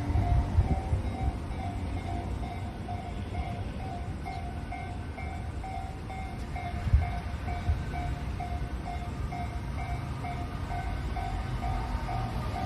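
Japanese level-crossing warning bell ringing in an even, rapid repeating ding while a Nambu Line train rumbles through the crossing, with a couple of sharp knocks from the wheels about seven seconds in.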